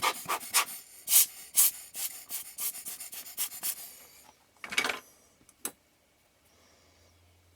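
Quick, irregular scraping and rubbing strokes as the dry, slightly worn helicoid thread of an Ai-Nikkor 24mm f/2.8 lens is worked by hand, about two to three strokes a second. About five seconds in comes one longer, louder scrape, then a single sharp click.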